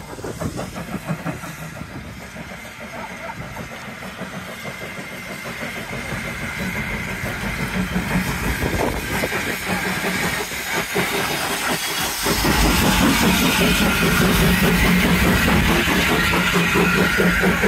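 Small steam tank locomotive running in along the track, its exhaust beats and steam hiss growing gradually louder. About twelve seconds in, the sound switches abruptly to a louder, steady low rumble and hum from close beside standing locomotives.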